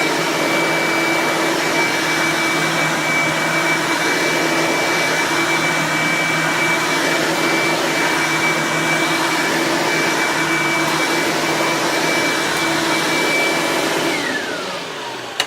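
Eureka The Boss upright vacuum cleaner's 10-amp motor running with a steady high whine and rush of air, then switched off near the end, its pitch falling as the motor winds down, followed by a single click.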